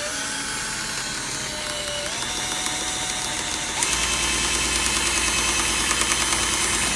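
Cordless drill driving a screw into a window-frame lock bracket. The motor runs steadily and rises slightly in pitch over the first two seconds, gets louder and rougher about four seconds in, and stops suddenly at the end.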